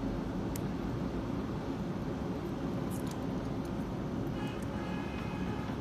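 Steady low background hum with a few faint, light clicks of small plastic plug-shell parts being handled and pried off.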